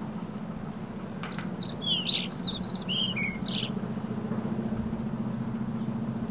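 A songbird singing one quick phrase of about a dozen short, high chirping notes, starting about a second in and lasting some two seconds, just after a sharp click. A steady low hum runs underneath.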